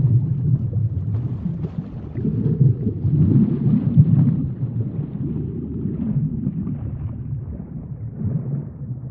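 Deep-water sound effect: a continuous low rumble of moving water that swells and eases every second or two, with faint crackling above it.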